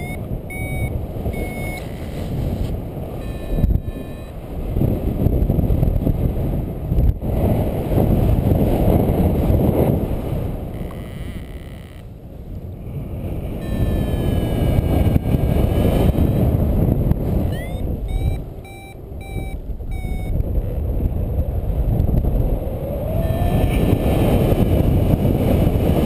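Airflow rushing over the microphone of a paraglider in flight, swelling and easing, while the pilot's variometer beeps: short high beeps in groups near the start and again about two-thirds through, and a longer gliding tone near the middle. The variometer's beeps and tones signal the glider's rate of climb or sink.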